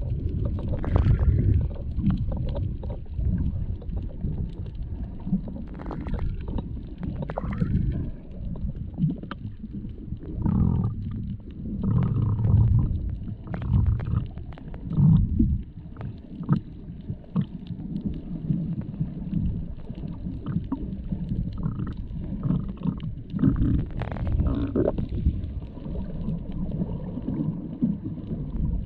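Muffled underwater rumble and sloshing picked up by an action camera in its waterproof housing while snorkeling, with scattered small clicks and bubbling throughout.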